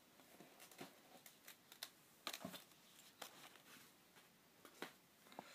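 Near silence: quiet room tone with faint, scattered clicks and taps of handling, about one every half second to second.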